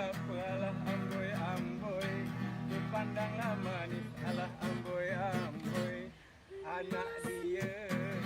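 Background music: acoustic guitar strumming under a melody line. It drops out briefly about six seconds in, then resumes.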